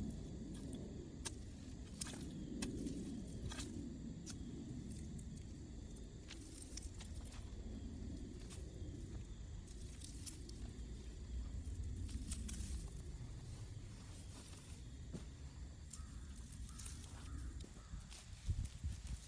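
Someone working among garden plants: scattered light snaps, clicks and rustles over a low rumble that swells and fades.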